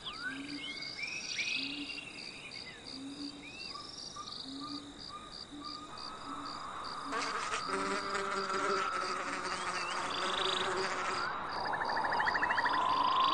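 Insects chirping in a steady, fast pulse with birds twittering now and then. From about seven seconds in, a flying insect buzzes close by, its hum wavering for a few seconds.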